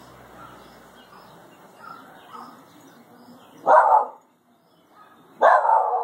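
Shiba Inu barking twice, loud sharp barks about a second and a half apart, the second a little longer. They are alert barks at a bird stuck in the bush.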